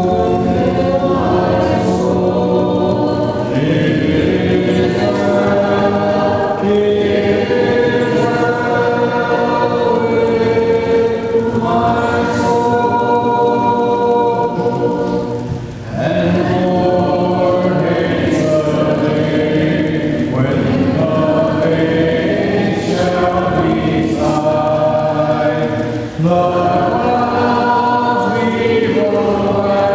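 Congregation singing a hymn together without instruments, many voices holding long notes in harmony, with short breaths between phrases about halfway through and again near the end.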